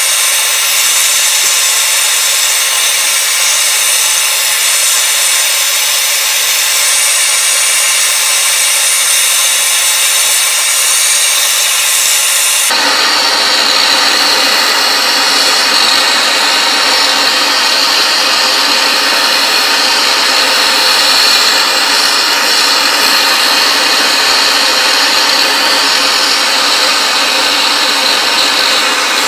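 Jeweler's gas torch flame hissing steadily while heating a silver spoon. About halfway through the sound changes abruptly to a fuller, lower hiss.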